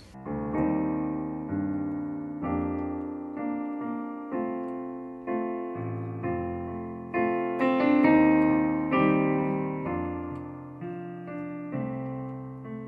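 Piano playing slow sustained chords, a new chord struck about once a second, each one ringing and fading before the next.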